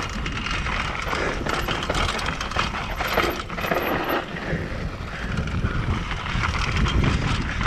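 Mountain bike ridden down a dry, dusty dirt trail: tyres crunching over loose dirt, with the chain and frame rattling in quick clicks over a steady low rumble of wind noise.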